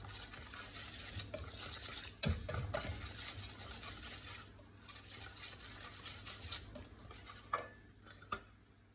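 Wire whisk stirring flour and wet ingredients into waffle batter in a stainless steel bowl: a steady scratchy rustle, with the whisk knocking against the bowl a few times. The stirring fades near the end.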